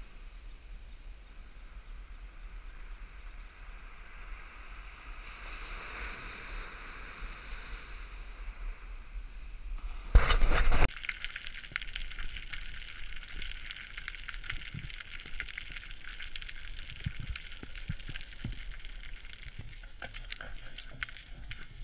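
Soft wind and surf on a beach. About ten seconds in there is a brief loud rush, and then underwater sound: a steady hiss crackling with many small clicks, with a few low thumps.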